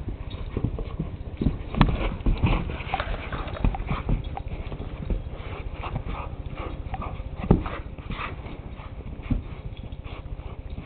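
Two pit bulls, an adult and a puppy, play-wrestling: paws and bodies scuffling and bumping in irregular knocks, the loudest about two seconds in and again about seven and a half seconds in.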